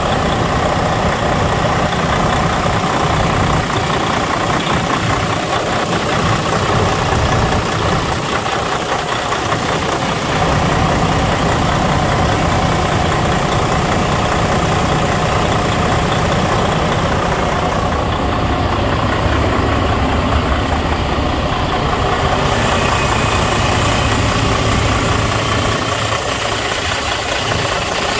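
Detroit DD13 inline-six diesel engine of a 2012 Freightliner Cascadia idling steadily, heard close up in the open engine bay.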